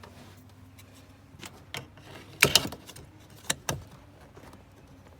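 A few sharp clicks and taps of hard plastic door trim and small hardware being handled, the loudest a quick double click about halfway through.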